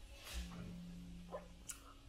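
Quiet mouth sounds between bites of raw broccoli: a faint low steady hum for about a second in the middle, then a short sharp click near the end as the mouth opens for the next bite.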